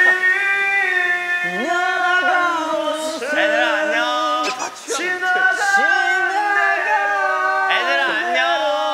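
A man singing long held notes with a wobbling vibrato.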